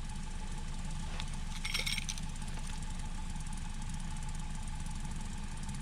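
An engine idling steadily, a low even rumble, with a brief hiss about two seconds in.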